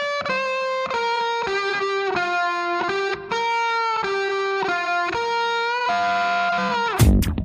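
Music: a single melody line of held notes, changing about every half second, with no beat beneath it; a dance-style beat comes back in near the end.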